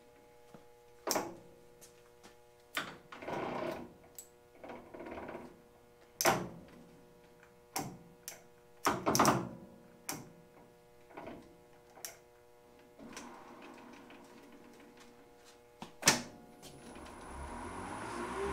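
Lathe headstock gear-change levers being shifted by hand: a dozen or so clicks and clunks of the levers and gears over a faint steady hum. Near the end the spindle starts turning and spins up with a rising whine.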